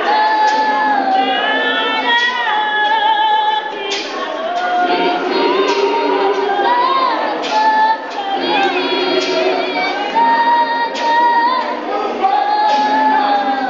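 A group of women singing together in a church choir, voices carrying a steady chant-like hymn, with a sharp knock marking the beat about once a second.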